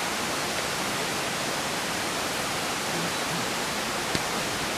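Steady, even rushing hiss with no pitch or rhythm, and one faint tick about four seconds in.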